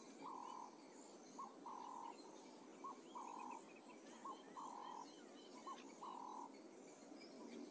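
Faint frog calls repeating about every second and a half, five in all. Each call is a short note followed by a longer, even note, with fainter high chirps in the background.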